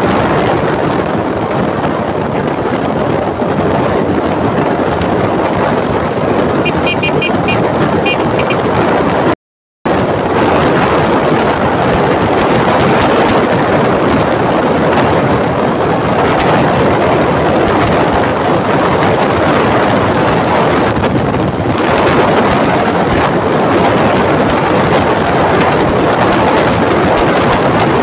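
Steady wind rushing over the microphone mixed with road and motor noise from a moving motorcycle. The sound cuts out completely for a split second about a third of the way in.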